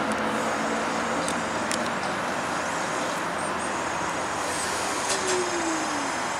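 A TTC Canadian Light Rail Vehicle (CLRV) streetcar running out of a tunnel on its rails: a steady rumble, with a few sharp clicks and a falling whine near the end.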